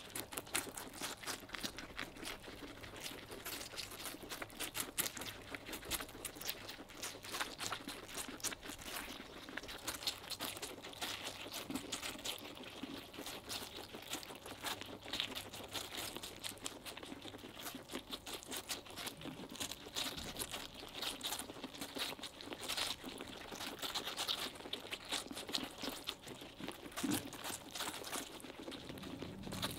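Four guinea pigs biting and chewing a slice of watermelon: a dense, constant run of small crunching bites as they gnaw into the flesh.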